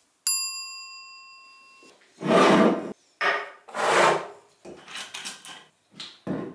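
A sharp metallic clink at the start that rings for over a second, then several scraping, sliding knocks as a tin can and a metal shot cup are pushed across and set down on a wooden tabletop.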